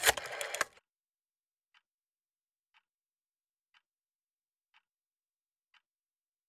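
A rotary telephone dial whirring back with fast clicks for under a second, then a faint tick once a second, clock-like, on an otherwise silent line with no ringing tone, as the call fails to connect.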